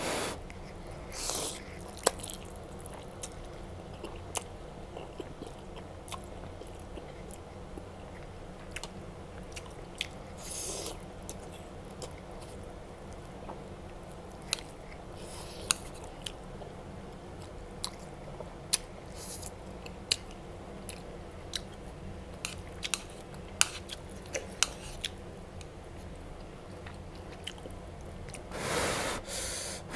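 Close-up eating sounds of someone working through a plate of spicy instant noodles and mustard leaves: steady chewing with many sharp mouth clicks and smacks, broken by a few short slurps of noodles, the longest near the end.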